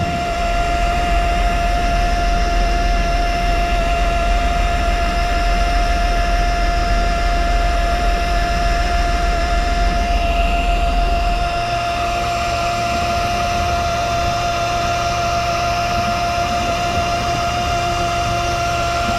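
Fishing boat's engine running steadily, with a deep rumble and a steady high whine; the rumble drops off about twelve seconds in.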